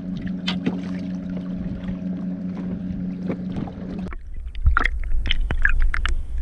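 A motor hums steadily at an even pitch, then cuts off abruptly about four seconds in. A heavy low rumble follows, with scattered knocks and water splashes around the kayak.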